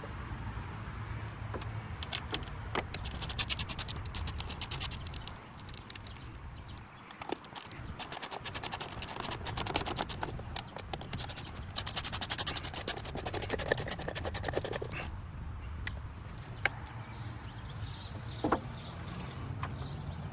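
Hand ratchet with an 8 mm socket clicking in two quick runs as a bolt is turned, with scrapes and clinks of metal tools in between.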